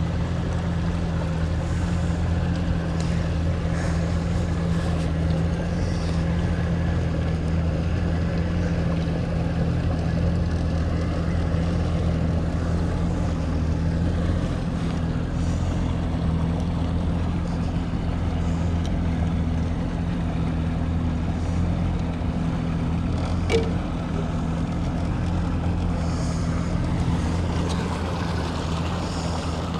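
50 hp outboard motor running steadily at low trolling speed, a constant low hum, with wash and wind noise over it. A single sharp click sounds about 23 seconds in.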